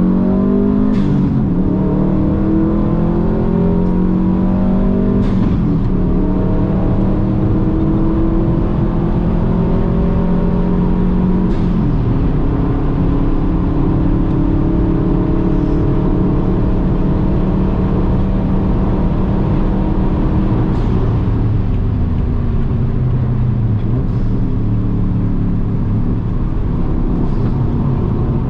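Subaru WRX turbocharged flat-four engine pulling hard on track, heard inside the car. Its pitch climbs steadily and then drops at each gear change, about four times, with a short sharp crack at most of the shifts, over steady road and wind noise.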